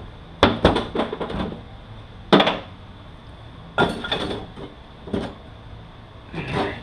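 Metal transmission parts knocking and clanking as the clutch pistons are worked off a 5-45RFE automatic transmission: a series of irregular sharp clanks, the loudest about two seconds in.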